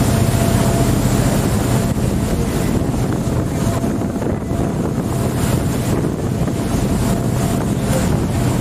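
A boat's engine running steadily under the rush of water, with wind buffeting the microphone.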